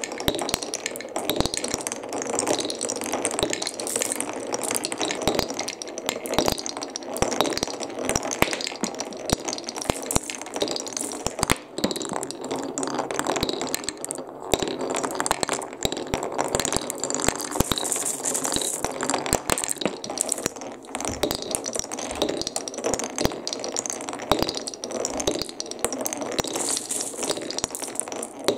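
Balls rolling and clattering down a wooden HABA marble run: an unbroken stream of rattling, clicking knocks as they run along the wooden tracks and drop between sections.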